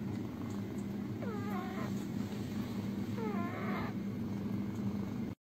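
Kitten making a steady low rumbling growl while eating wet food from a bowl, broken twice by a short whiny call that bends up and down in pitch, about two seconds apart. The sound cuts off just before the end.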